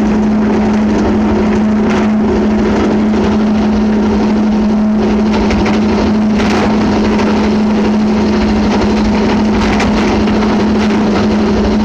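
Worm-gear elevator car of a port crane running as it climbs: a steady, loud motor hum under a constant rattle, with an occasional knock. Quite noisy and very rattly.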